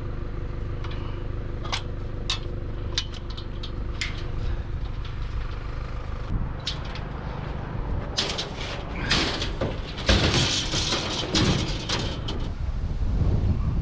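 Vehicle engine running with a steady low hum and scattered sharp clicks; from about eight seconds in, a louder rushing, rattling noise joins it.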